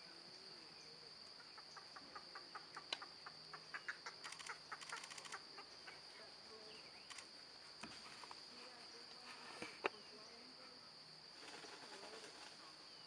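Faint, steady high-pitched insect chorus, with a run of rapid clicks, about four a second, lasting roughly four seconds from about a second and a half in, and one sharper click later on.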